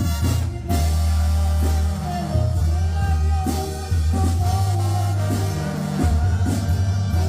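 Live Mexican banda music played by a brass band: a tuba bass line stepping from note to note, a brass and wind melody over it, and a steady drum beat.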